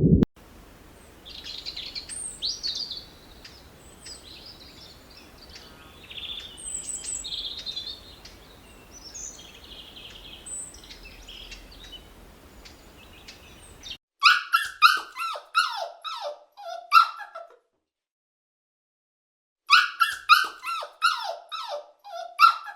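Animal calls: faint high squeaks and chirps over a steady hiss, then, after an abrupt cut, two runs of loud, quick yelps that each fall in pitch, several a second, with a short silence between the runs.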